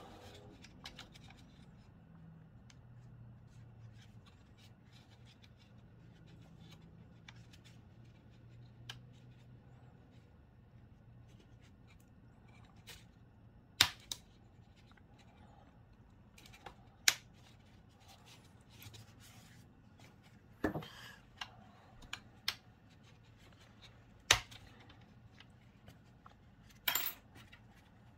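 Small metal trim clips clicking and clinking against a plastic dash facia as gloved hands fit them on, with a few sharper clicks spread through the second half. A faint low hum sits underneath.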